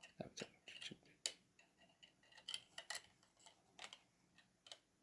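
Near silence with a scatter of faint, irregular clicks and light taps.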